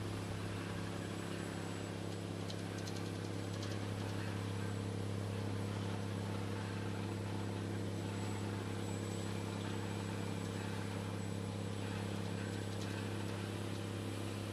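Engine of a borehole drilling rig running steadily, a constant low drone.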